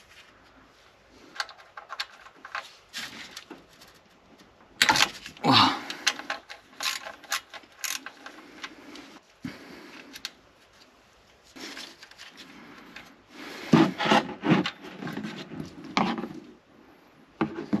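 Hand work on the oil pan's oil level sensor: scattered clicks, knocks and rubbing as the sensor's plastic connector is handled and a hand tool works against the metal. The loudest clusters come about five seconds in, with a short sound sliding down in pitch, and again around fourteen seconds.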